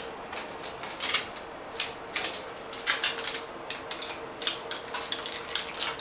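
Irregular crackling, rustling and clicking of protective shielding being handled and pressed onto a circuit board around its capacitors, so that they don't pop or overheat under the rework heaters. A faint steady hum runs underneath.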